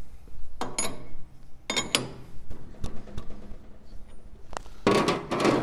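Metal clinks and knocks from handling the brake drum and arbor nut on a stopped Ammco brake lathe. A couple of the knocks ring briefly, and a rougher scraping noise follows near the end.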